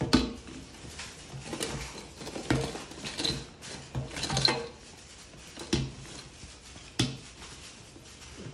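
Plastic shampoo and body-wash bottles set down one by one on a hard tabletop: a series of separate knocks, about one every second, with rustling of a shopping bag between them as each bottle is taken out.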